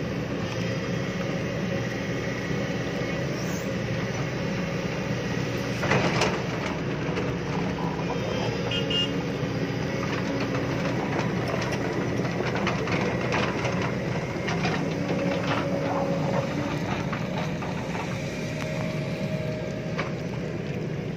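JCB crawler excavator's diesel engine running steadily as the machine drives down off a flatbed truck, with its steel tracks clanking and knocking, including a louder clank about six seconds in.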